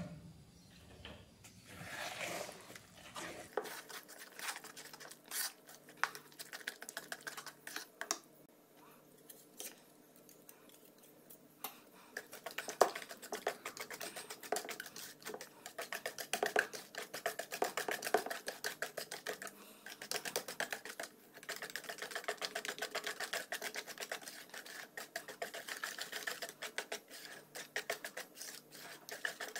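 Chocolate cake batter being beaten by hand in a bowl, the utensil clicking rapidly against the bowl. The strokes are sparse at first and become fast and steady through the second half.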